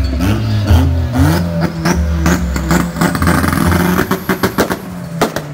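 Car engine revving hard again and again, with rapid sharp pops from the exhaust, over bass-heavy music.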